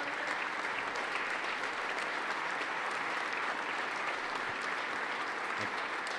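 A chamber full of legislators and guests applauding steadily, a dense patter of many hands clapping.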